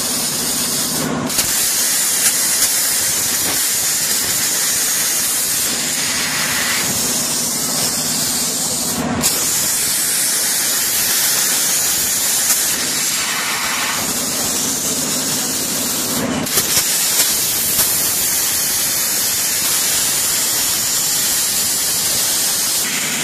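200-amp CNC plasma cutter cutting 10 mm carbon steel plate: a loud, steady hiss of the arc and its gas jet. Three times it gives way to a lower hum while the torch is between cuts, and each time the arc restarts with a short break and a few sharp pops.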